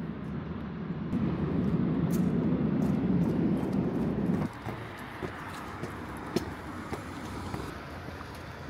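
Outdoor city ambience: a loud low rumble that cuts off sharply about four and a half seconds in, then quieter steady background noise with a few faint clicks.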